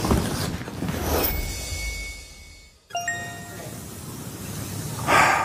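Edited-in TV sound effects: a held ringing tone, then a bright chime ding about three seconds in, followed by a noisy swell that grows louder near the end.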